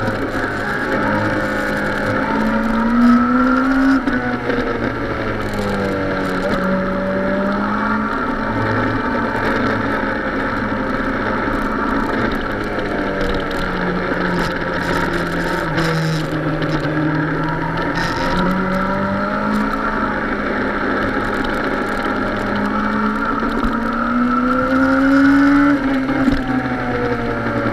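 Suzuki sport motorcycle's engine running under way, heard from a camera mounted on the bike, its note slowly rising and falling with the throttle through the bends.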